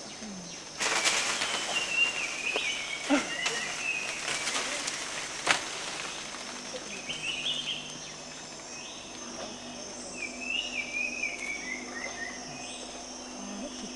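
Leaves and branches rustling and crackling with a sharp snap near the middle as an orangutan moves and feeds in the tree canopy. A bird sings a repeated, stepped, falling phrase several times, over a steady high drone of insects.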